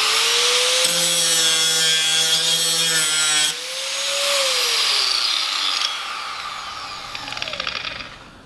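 A Draper 820 W angle grinder running at full speed with a high, rasping whine. About four seconds in it is switched off, and its whine falls in pitch as the disc coasts down, fading out near the end.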